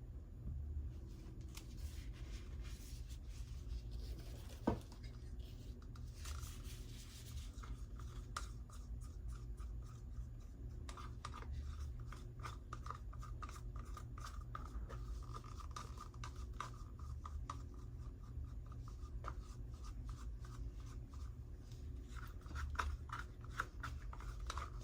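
Light scraping, rubbing and ticking as paint cups and a stirring stick are handled, over a steady low hum, with one sharp tap about five seconds in.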